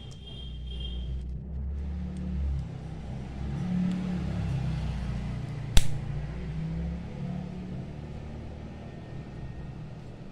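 Plastic back cover of a Bluetooth selfie-stick remote snapping shut under finger pressure, a single sharp click a little past the middle, over a steady low rumble.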